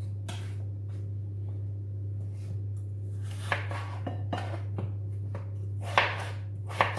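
Kitchen knife cutting raw potatoes on a cutting board: a series of separate knocks, several seconds apart at first, then louder and closer together near the end. A steady low hum runs underneath.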